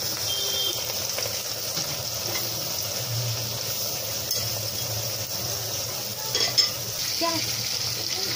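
Sliced onions sizzling and frying in hot mustard oil in a pressure cooker, stirred with a metal slotted spoon. There is a steady hiss of frying throughout, and a sharp knock about six and a half seconds in.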